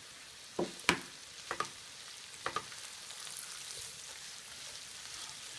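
Crumbled sausage sizzling steadily as it browns in a skillet, with a spatula stirring it and knocking and scraping against the pan a few times in the first three seconds, the loudest knock about a second in.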